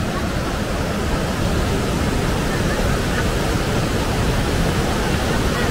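Aare river water rushing and churning through the sluice gates of a weir as it leaves Lake Thun: a loud, steady roar of white water.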